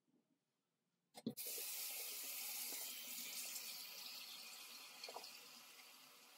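Water running steadily from a tap, starting just after a couple of clicks about a second in, and slowly getting quieter.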